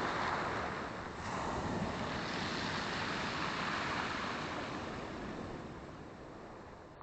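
Black Sea waves washing on the shore, swelling twice and then dying away toward the end.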